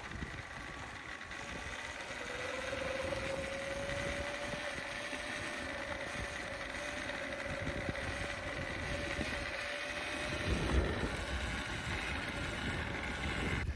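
A small vehicle engine running steadily. Its pitch rises slightly about two seconds in and then holds, with wind rumbling on the microphone.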